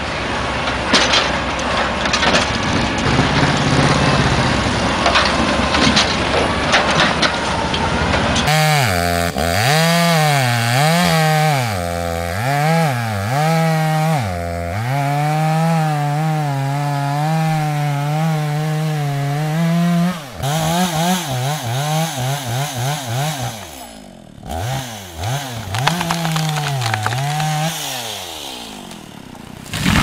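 For the first eight seconds or so, a log loader's engine and grapple knocking against timber. Then a two-stroke chainsaw runs hard while felling a tree, its pitch rising and falling again and again as the throttle is worked. Near the end, a rapid run of knocks as the engine pitch drops, then more revving.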